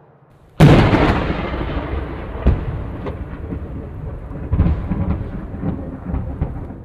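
A sudden crack of thunder about half a second in, followed by a long rolling rumble with scattered crackles, swelling again about four and a half seconds in before dying away.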